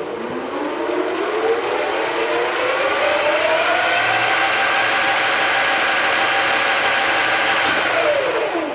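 Mazak 18" x 60" gap-bed engine lathe headstock whining as the spindle spins up to about 720 RPM, the pitch climbing over the first few seconds and then holding steady. Near the end the pitch drops quickly as the adjustable electric spindle brake, set at about three-quarters, stops it, which is called pretty fast, about 3 seconds.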